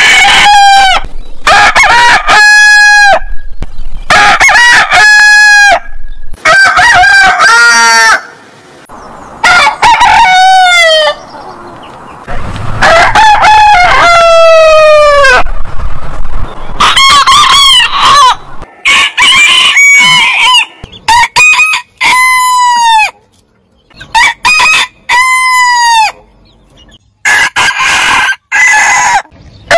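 Roosters crowing one after another, a dozen or more crows from different birds, each held and then falling in pitch at the end, with one long, steadily falling crow in the middle. The crows start and stop abruptly, cut back to back.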